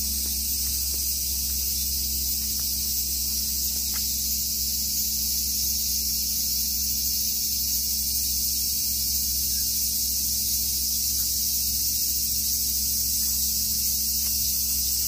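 Steady chorus of insects, a loud unbroken high-pitched hiss, over a low hum.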